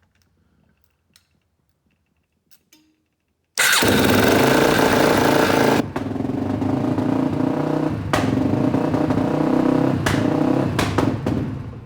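2004 Polaris Predator 500's single-cylinder four-stroke engine fires up on choke about three and a half seconds in and runs loud and uneven, with a few sharp cracks, then dies away near the end. The owner puts the rough running down to a battery cable that wasn't fully on.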